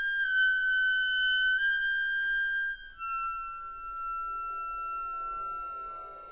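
Solo clarinet holding long, high notes in its top register, shifting slightly in pitch, with a brief break about three seconds in before a slightly lower held note. Soft orchestral strings come in underneath about four seconds in.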